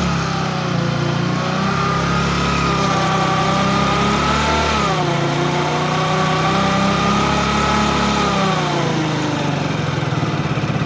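Hero HF Deluxe BS6's small single-cylinder engine running in first gear under light throttle against the brake, with a whine from the gearbox that rises, dips about five seconds in, rises again and fades near the end. It is the abnormal first-and-second-gear noise that the mechanic traces to a damaged small bearing beside the drive sprocket, which lets the gearbox shaft wobble.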